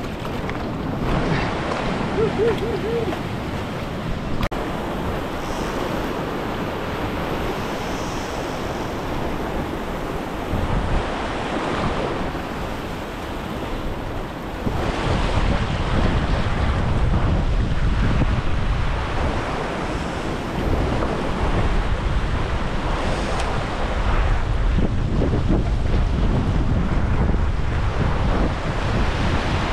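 Heavy ocean swell surging and washing over coastal rocks, with wind buffeting the microphone; the low rumble grows heavier about halfway through.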